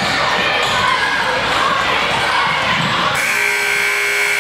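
Court and voice noise of a basketball game in a large gym. About three seconds in, the scoreboard buzzer starts a steady, pitched horn and holds it past the end, as the game clock reaches zero at the end of the fourth period.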